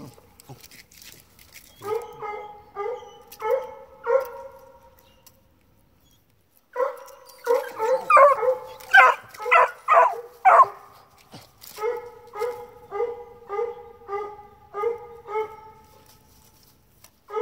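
Hound pups barking treed at a raccoon up a tree: strings of pitched, evenly spaced barks. A pause of a couple of seconds near the middle, then a faster, louder run of barks, then a steady run of about two barks a second.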